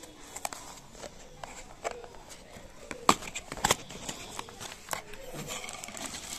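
Hands handling a cardboard box: scattered scrapes, taps and clicks of cardboard as the lid is opened and a hand reaches inside, with two sharper clicks a little after three seconds in.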